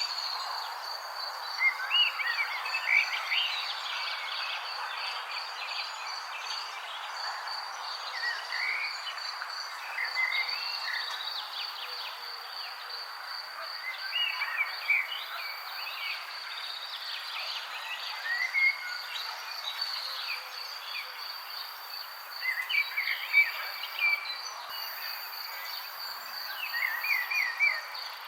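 Songbirds singing in scattered short bursts of chirps and whistles, over a continuous high, rapidly pulsing trill and a steady background hiss.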